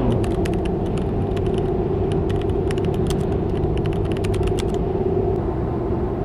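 Road noise inside a moving Ram 1500 pickup's cab: a steady hum and drone, with light irregular clicks and rattles through the first four and a half seconds.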